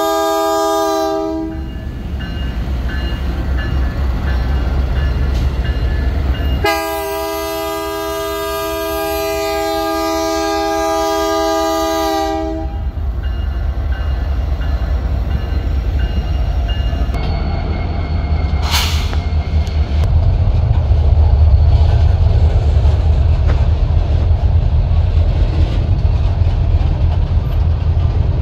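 Freight train's multi-note chord horn sounding twice: a blast that ends about a second in, then a longer blast of about six seconds starting near a quarter of the way through. Throughout, and louder in the second half, there is the heavy low rumble of Canadian Pacific diesel locomotives and then rail cars passing close by, with a single sharp click or squeal about two-thirds of the way in.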